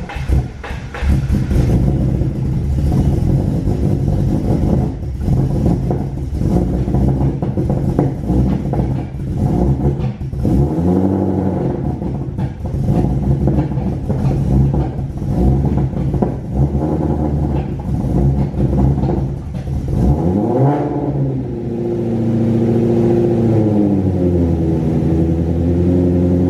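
Ford Mustang Shelby GT350's 5.2-litre flat-plane-crank V8 running, with two quick revs that rise and fall in pitch at about ten seconds in and twenty seconds in, then holding a slightly wavering raised idle near the end.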